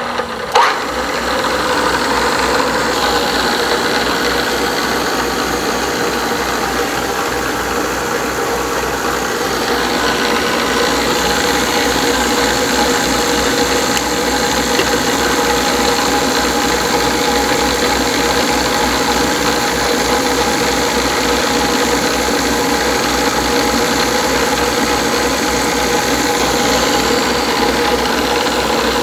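DoAll drill press running steadily at its top speed of about 3,530 RPM while a number 76 drill bit in a pin vise drills through quarter-inch mild steel plate. There is a sharp click shortly after the start.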